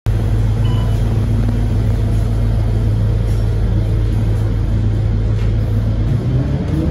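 Scania K230UB city bus's diesel engine heard from inside the passenger cabin, running with a steady low hum, then rising in pitch near the end as it picks up revs.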